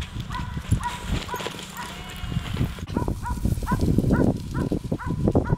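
Sighthound yipping excitedly in short, even, rapid repeats, about three a second, keen to chase the lure, over low thumps and rumble.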